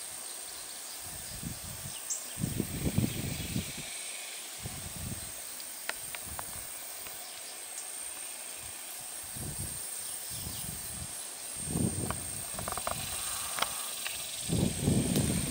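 Outdoor background noise: a steady hiss with a thin high-pitched whine, broken by irregular low rumbles that grow louder near the end, and a few faint clicks.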